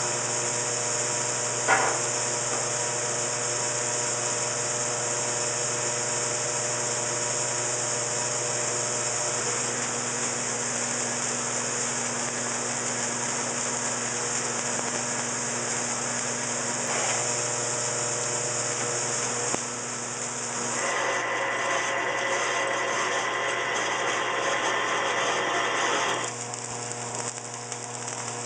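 MIG welding on steel tube: a steady arc hiss and crackle over a constant electrical hum. The sound changes about three-quarters of the way through and gets quieter near the end.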